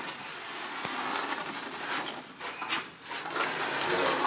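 Hand trowel scraping across a bare floor in sweeping strokes, spreading carpet adhesive.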